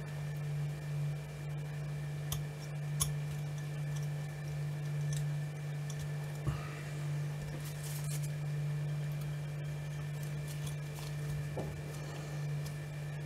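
Steady low hum, with a few faint scattered clicks and taps of small metal parts as a brass clock movement is handled during reassembly.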